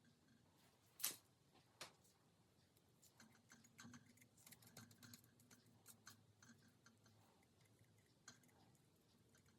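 Faint small clicks and taps in a quiet room, with one sharper click about a second in.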